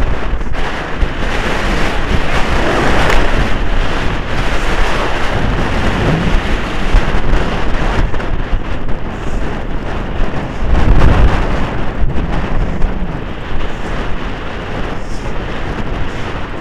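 Wind rushing and buffeting over a helmet-mounted camera's microphone while riding at speed on horseback, loud throughout, with a heavier low gust about two-thirds of the way through.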